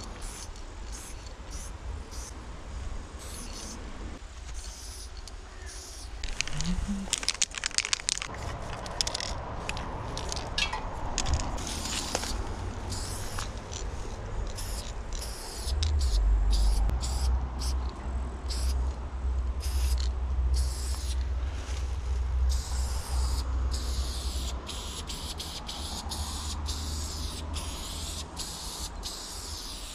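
Aerosol spray-paint cans hissing in bursts of varying length, stopping and starting many times as letters are sprayed. A low rumble rises for several seconds in the middle.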